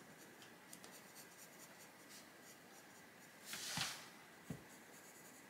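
Coloured pencil scratching lightly on a colouring book page as small areas of an arm are shaded in, faint throughout, with a louder stroke about three and a half seconds in and a small tick just after.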